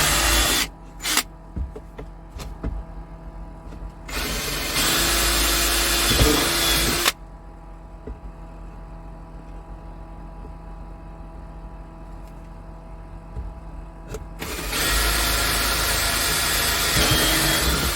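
Power drill running in two bursts of about three seconds each, one about four seconds in and one near the end, after a burst that stops just after the start. A steady low hum runs underneath, with a few clicks between the bursts.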